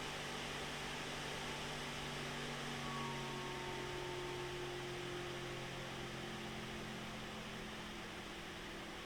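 Cooler Master Mobius 120 OC 120 mm PC fan blowing through a tower CPU heatsink, a steady airflow hiss with a low hum. As its PWM speed is gradually lowered, the hum tones slide slightly lower in pitch and the sound slowly gets quieter.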